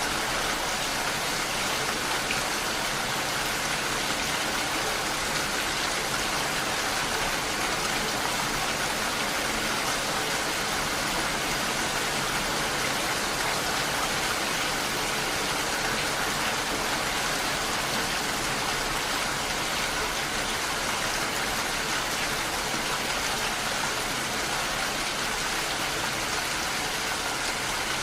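Steady rain falling on window glass, an even hiss that does not let up.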